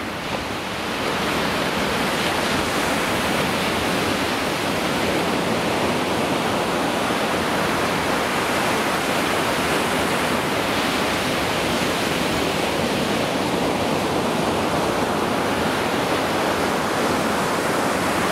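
Ocean surf breaking and washing up a sandy beach: a steady rushing noise that does not let up.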